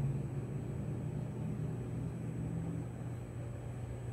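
Vehicle engine idling: a steady low hum with no change.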